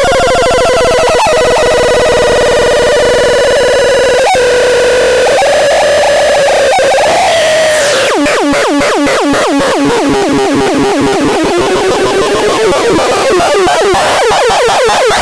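WAXISON B 603 electronic siren sounding a loud, steady, buzzy tone that wavers slightly in pitch. About eight seconds in it switches to a rapid warble, the pitch sweeping up and down several times a second.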